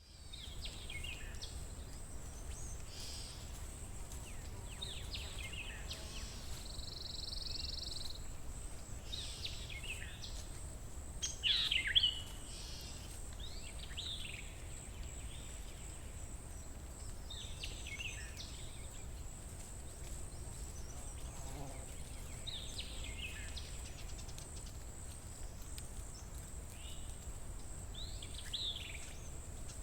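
Wild birds singing in short, sweeping phrases repeated every few seconds, the loudest about twelve seconds in. Beneath them run a steady high-pitched whine and a low background rumble.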